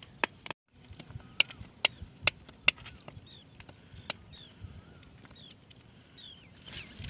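River pebbles clacking against each other as they are handled and shifted, about eight sharp clacks over the first four seconds. Short high chirps come in the quieter second half.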